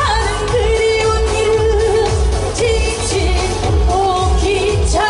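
A woman singing a Korean pop song live into a microphone over amplified accompaniment with a steady bass beat, holding long notes with vibrato.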